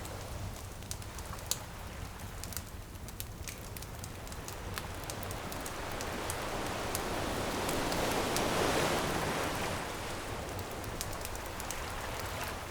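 Ocean waves washing onto a beach, one wave building to a peak about two-thirds of the way through and then receding, over a campfire that crackles and pops throughout, with one sharper pop early on.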